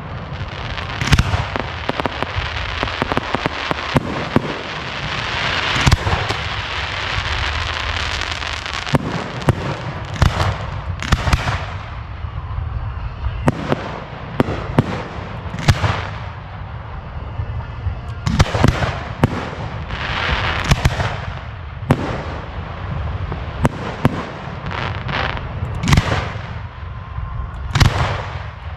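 Fireworks display in full swing: a long run of sharp bursts and booms at irregular intervals, some in quick clusters, over a continuous noisy haze of crackle and echo.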